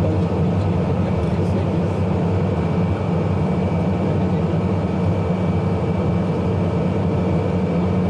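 Embraer EMB-121 Xingu's twin PT6A turboprops heard from inside the cockpit, a loud steady drone with a deep propeller hum and a thin high turbine whine, as the aircraft rolls down the runway after landing.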